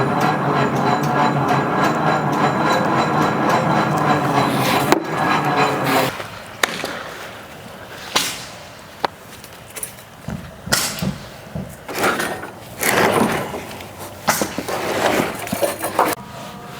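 A loud, steady drone for about the first six seconds, stopping abruptly, then scattered wooden knocks and bangs of framing lumber being handled.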